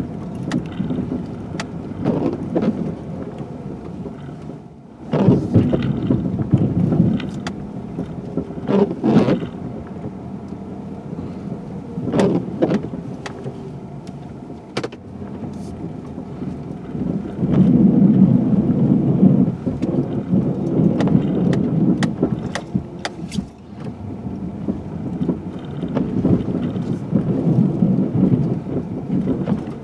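2016 GMC Sierra pickup with a snow plow, at work clearing a parking lot: a low rumble that swells and fades in long surges, with scattered sharp knocks.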